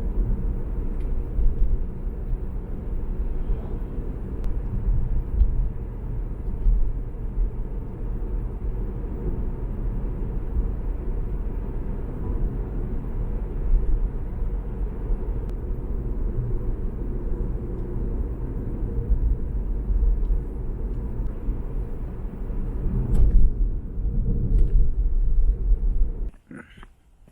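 A steady low rumble with no clear pitch, cutting off abruptly about a second before the end.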